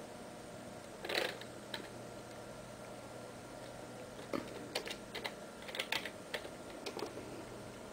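Computer keyboard keys clicking as a search term is typed: one louder clack about a second in, then short irregular runs of keystrokes in the second half, over a steady low hum.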